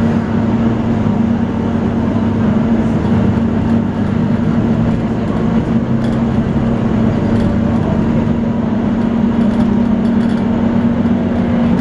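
Volvo B9TL double-decker bus's diesel engine running steadily under way. It has the constant droning whine that enthusiasts call a 'hoover'.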